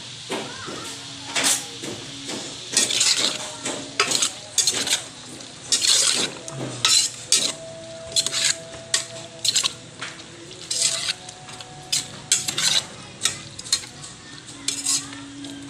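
A metal cooking spoon scraping and clanking against the inside of a metal pot as pork pieces are stirred, in quick repeated strokes roughly two a second.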